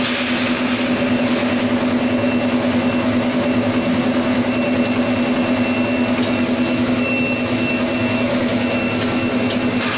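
Screw oil expeller running steadily while pressing sunflower seeds: a constant machine hum with one strong low tone over an even noise.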